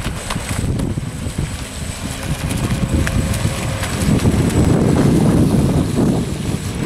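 Wind buffeting the microphone: a steady low rumble that grows stronger about four seconds in.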